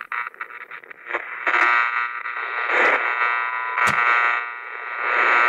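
Electronic buzzing and radio-style static, stuttering on and off in the first second and then holding steady, with a few sharp crackles.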